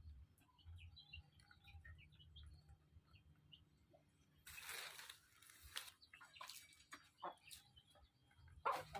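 Ayam kampung (free-range village chickens) clucking and chirping faintly in short calls, with brief rustling noises about halfway through and again near the end.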